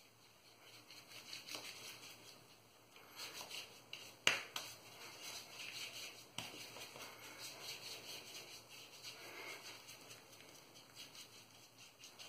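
Hand smearing thick shaving soap lather over the cheeks and chin: faint, wet squishing and crackling, with a sharper click about four seconds in.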